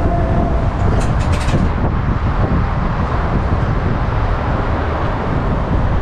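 Steady low rumbling background noise, with a few sharp clicks about a second in.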